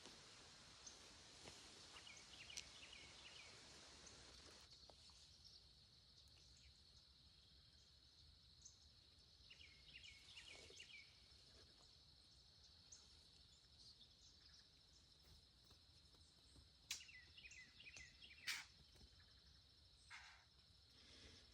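Quiet outdoor field ambience: a faint, steady insect trill throughout, with a few short runs of bird chirps and two sharp clicks near the end.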